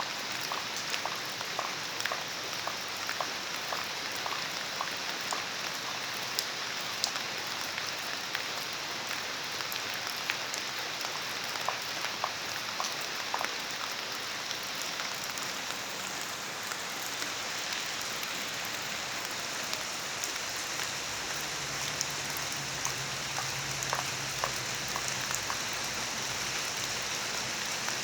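Steady rain falling, an even hiss with many separate drops ticking and plinking on a hard surface close by.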